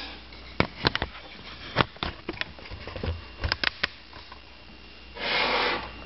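A scatter of light clicks and knocks as things are handled on a kitchen countertop, then a short breath through the nose near the end.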